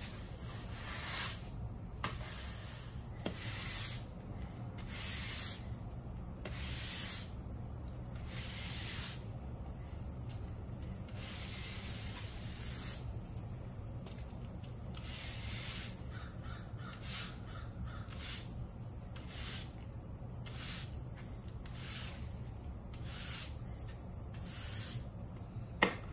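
Push broom sweeping grass clippings across a concrete driveway, one brushing stroke about every second, the bristles scraping on the concrete. A steady high chirring of crickets runs underneath.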